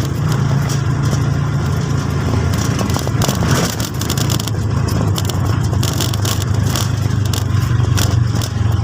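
A vehicle's engine running steadily, a constant low drone with crackling noise on top.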